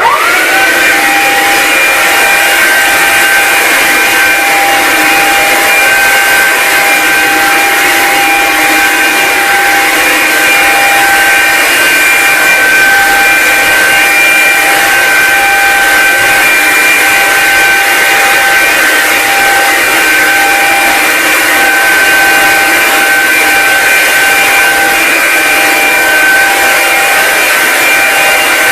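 Hoover Linx cordless stick vacuum switching on, its motor spinning up in a moment to a loud, steady high-pitched whine over a rushing hiss, running continuously while vacuuming up coarse salt.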